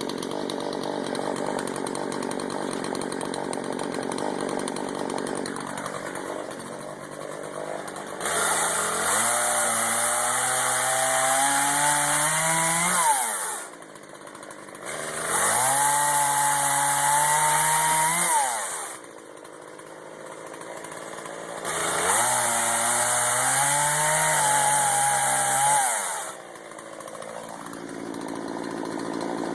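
Two-stroke chainsaw idling, then revved up three times, each burst of throttle lasting three to five seconds with the pitch climbing before it drops back to idle.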